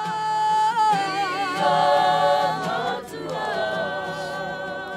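Voices singing together without instruments, in long held notes with a wavering pitch. The singing thins briefly about three seconds in, then one long note is held.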